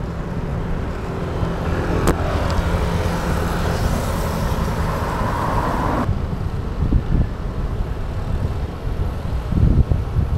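Wind rumbling over the microphone of a handlebar-mounted camera on a moving road bike, with traffic around it. There is a sharp click about two seconds in, and a hiss that grows brighter and then cuts off abruptly about six seconds in, leaving the low rumble with a few thumps near the end.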